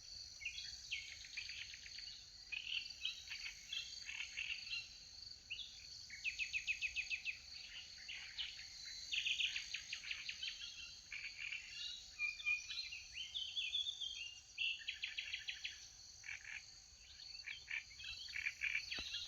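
Wild animal chorus: a steady high insect drone, with bursts of rapid pulsed trills from frogs or birds that repeat every second or two.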